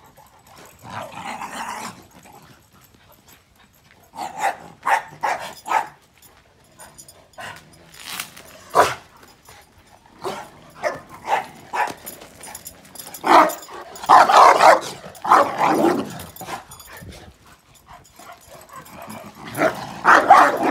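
Dogs barking in bursts. A quick run of about four barks comes some four seconds in, then scattered barks, then longer, louder barking in the middle and again near the end.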